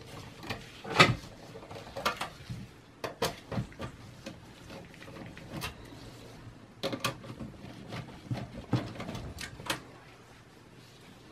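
Irregular clicks and light knocks of a Phillips screwdriver working the power supply's retaining screw at the back of a steel desktop computer case, with handling of the metal chassis.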